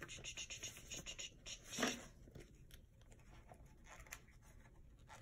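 Paper stickers and a planner sheet being handled: soft rustling and light scratching with small ticks, busiest in the first two seconds with one louder crinkle just before the two-second mark.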